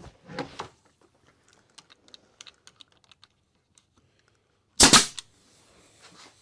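Pneumatic brad nailer driving a brad into PVC trim: one loud, sharp shot about five seconds in. Quieter knocks come near the start and light clicks in between as the trim and nailer are positioned.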